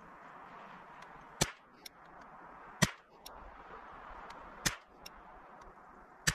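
KIDD 10/22 .22 LR rifle firing four shots at a steady pace, about one every one and a half to two seconds, each a sharp crack with a short tail. Fainter ticks follow some of the shots.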